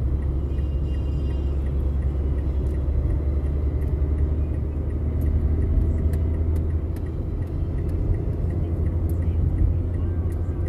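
Steady low rumble of a car driving along an elevated expressway, engine and tyre noise heard from inside the cabin.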